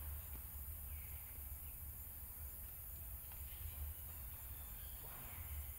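Faint outdoor ambience: a low fluctuating rumble and a steady hiss, with a faint bird chirp about a second in.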